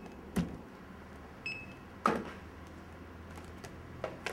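Quiet shop room tone broken by two sharp knocks, about half a second in and about two seconds in, and one short high electronic beep about a second and a half in.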